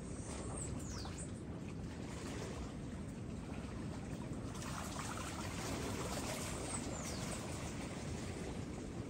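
Shallow seawater lapping and trickling in a steady wash. Two brief high whistles glide downward, about half a second in and again near seven seconds.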